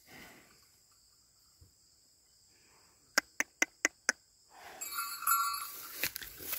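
Insects buzzing steadily in the background; about halfway through, a quick run of five sharp clicks, about four a second, then a couple of seconds of rustling in dry straw and grass.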